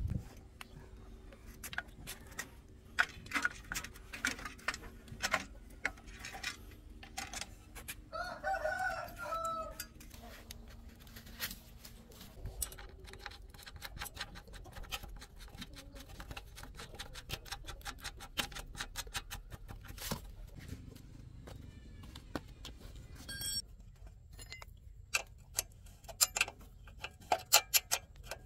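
A rooster crows once about eight seconds in, over a scatter of sharp clicks and taps from small hard objects; the clicks come quicker and louder near the end.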